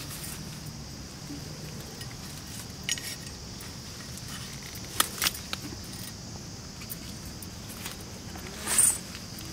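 Steady insect drone under scattered sharp clicks and rustles as aloe vera leaves are cut at the base with a knife, with a louder rustle near the end.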